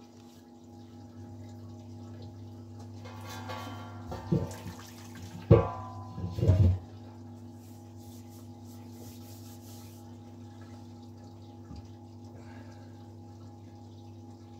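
Steady electric hum with liquid running and trickling, from an electric homebrew system recirculating wort while it heats. Between about four and seven seconds in, a few loud clattering knocks, the loudest near the middle.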